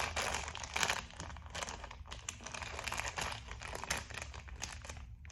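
Toy wrapping crinkling as it is worked open by hand: a dense run of crackles that thins out near the end.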